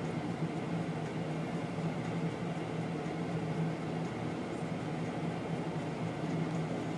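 Steady drone of heavy quarry machinery: a rock crusher and diesel earthmoving machines running together, with a constant low hum.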